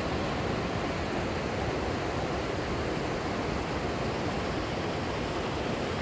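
Mountain river rushing steadily over rocks in white-water rapids.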